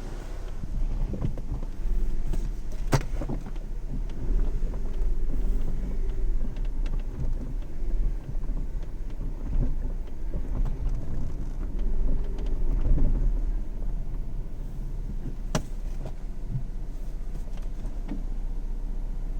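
BMW E36 running with a heavy low rumble and a tone that rises and falls twice, plus two sharp clicks, one about three seconds in and one about fifteen seconds in. This is the weird noise and constant vibration the owner reports when starting to drive, with the vibration still there when the clutch is pressed.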